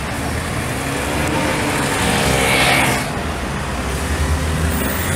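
Road traffic on a city street: a car passes close, loudest about two to three seconds in, over a steady low rumble of traffic.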